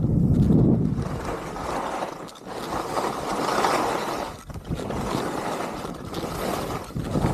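Skis hissing and scraping through fresh storm snow on a downhill run, with wind buffeting the microphone. The sound dips briefly twice, about two and four and a half seconds in.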